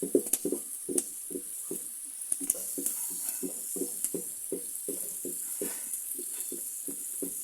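Food sizzling in a hot pan, a steady hiss, with a utensil clicking sharply against the pan a few times in the first couple of seconds.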